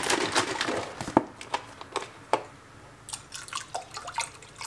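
Soy milk poured from a carton into a stainless steel saucepan of oats and hot water, dripping and splashing, with a few sharp clicks and taps scattered through.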